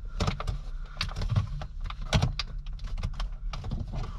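Plastic interior trim being handled and pushed into place around a gear shifter: a run of irregular clicks and knocks, several a second, over a steady low hum.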